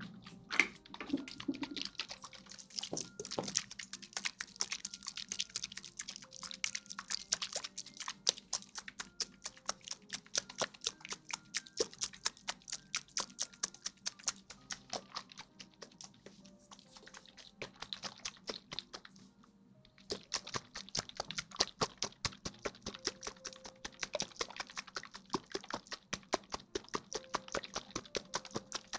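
Rapid, crisp ASMR clicks and taps close to the microphone, several a second, with faint soft music underneath; they pause briefly just before twenty seconds in, then resume.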